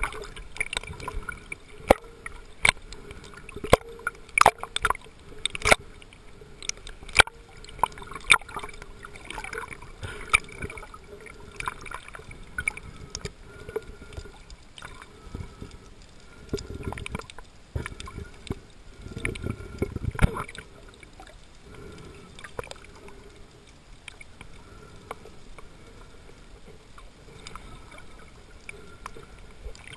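Underwater sound of a snorkeler's camera in the sea: a scatter of sharp clicks and knocks in the first several seconds, then gurgling, sloshing water swelling twice a little past halfway, settling to a quieter hiss near the end.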